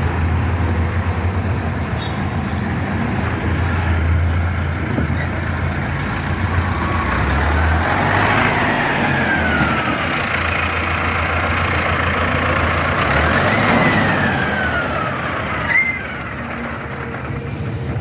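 Mahindra Novo 605 DI tractor's CRDI diesel engine running as the tractor is driven, with a steady low hum. Its pitch rises and falls twice as it revs up and eases back. A click comes near the end, after which it runs a little quieter.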